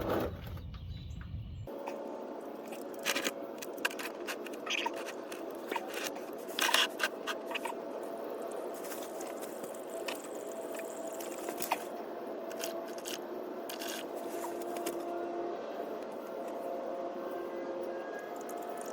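Engine oil running steadily out of the drain hole into a drain pan, with scattered scrapes and clicks of the drain plug and pan being handled.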